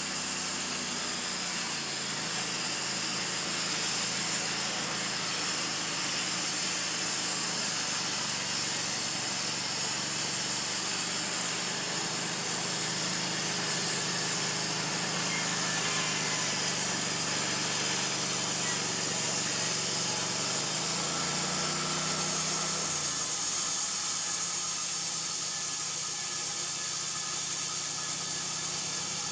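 Wood-Mizer LT15 portable sawmill's engine running steadily, with a hiss above it. Its pitch shifts about 21 seconds in.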